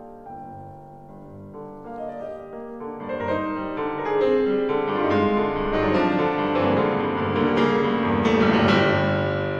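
Solo piano playing a classical piece, starting quietly and building to a loud, full passage about three seconds in.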